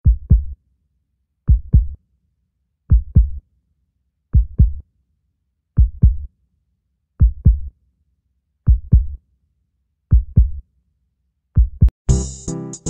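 Heartbeat sound effect: slow low double thumps, lub-dub, repeating evenly about every one and a half seconds, nine pairs in all. Just before the end, music with drums and instruments starts.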